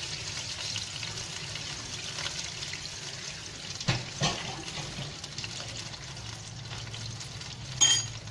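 Water and oil in a wok bubbling and sizzling over the heat around prawns and chillies, a steady hiss with a low hum underneath. The water has only just been added and is heating toward the boil. Two sharp knocks come about four seconds in, and a short ringing clink of metal or crockery near the end.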